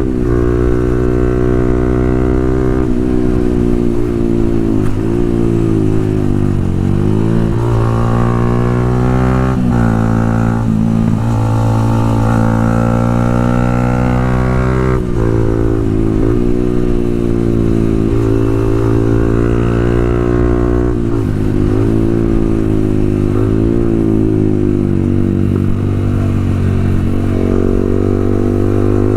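Motorcycle running through a Pro Liner full-system aftermarket exhaust, its engine note falling and rising again several times as the throttle and revs change.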